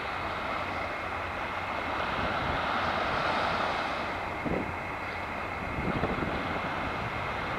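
Surf washing onto the beach, swelling to a peak about three seconds in and then easing off.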